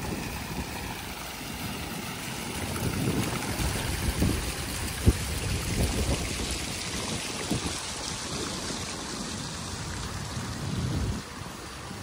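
Fountain jets splashing into a stone basin, a steady rush of falling water, with wind gusting on the microphone and one short knock about five seconds in.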